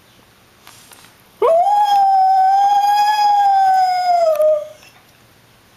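Border collie howling: one long howl starting about a second and a half in, rising quickly in pitch, held steady for about three seconds, then sliding down as it ends.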